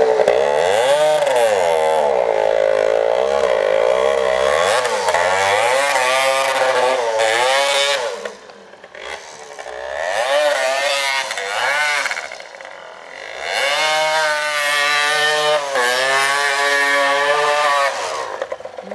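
Honda MTX 125 two-stroke single-cylinder dirt bike engine revved hard and repeatedly, its pitch rising and falling as the rear wheel spins and slides in deep snow. It eases off twice in the middle, then revs hard again.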